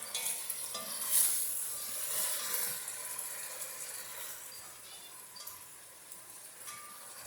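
Oxtails searing in hot fat in a Dutch oven, sizzling steadily, with louder swells of sizzle about a second in and again around two seconds.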